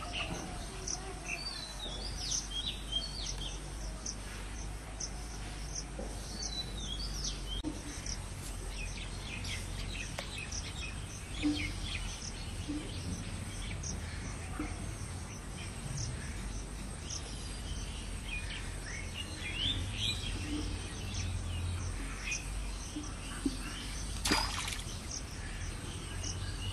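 Outdoor ambience of many short bird chirps and calls with insects, over a low steady rumble; a brief sharp sound stands out near the end.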